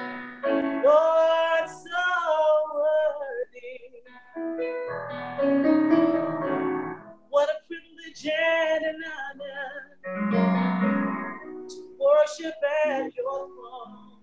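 A woman singing a solo sacred song in long held phrases with short breaks between them, over instrumental accompaniment.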